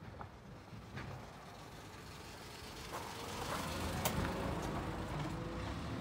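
A motor vehicle's engine running, growing louder from about three seconds in, with a few sharp clicks, the loudest about four seconds in.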